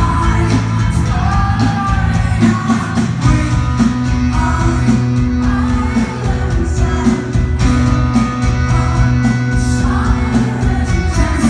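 Live rock band playing: a lead singer over electric guitars, bass and drums, heard loud from the audience in a concert hall.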